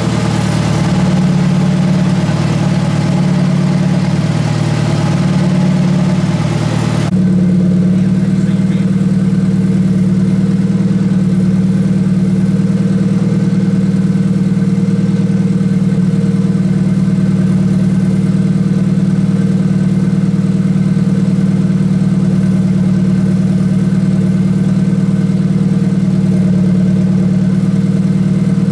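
Turbocharged Honda D16 single-cam four-cylinder idling steadily. A hissy layer over it stops abruptly about seven seconds in, leaving the steady idle.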